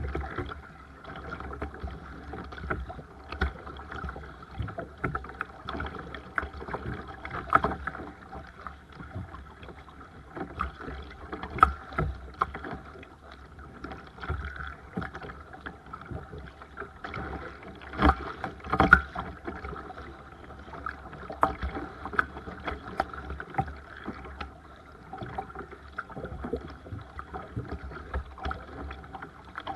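Seabird Discovery sea kayak being paddled on the sea: water splashing and sloshing around the paddle and hull, with irregular sharp knocks and splashes over a steady faint hum. The biggest splashes come about two-thirds of the way through.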